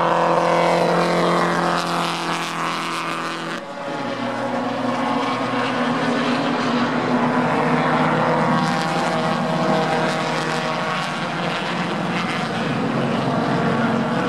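A pack of vintage racing cars on track, several engines running at once with their notes overlapping, shifting abruptly about three and a half seconds in.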